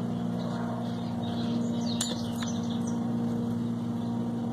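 A steady low hum, made of a few held pitches, from an unseen machine, with faint bird chirps and a light click about two seconds in.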